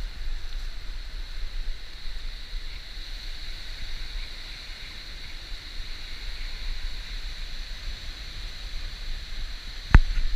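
Steady wash of small waves breaking across a shallow coral reef flat, with wind rumbling on the microphone. A single sharp knock near the end.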